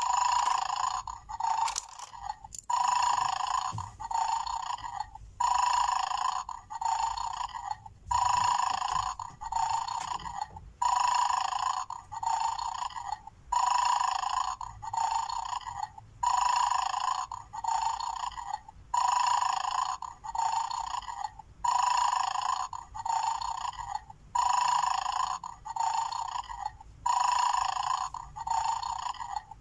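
Electronic snoring sound played on a loop through the small speaker of a battery-operated toy bulldog bone game, a two-part snore repeating about every two and a half seconds: the toy in its 'sleeping' state before it is set off to bark. A few sharp clicks, plastic tweezers and bones, come near the start.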